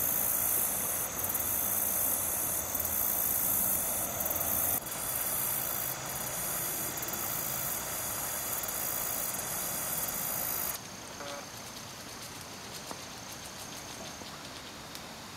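Steady high-pitched insect chorus, a shrill hiss of late-summer field insects around the pond. It drops abruptly to a quieter, softer outdoor ambience about 11 seconds in.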